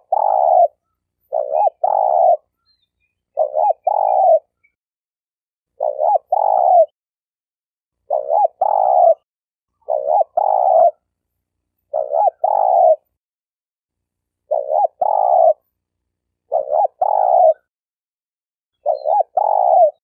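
Spotted dove cooing in the stuttering 'gagap' pattern: each phrase is a couple of quick broken coos leading into a longer coo, repeated about every two seconds, as a lure call.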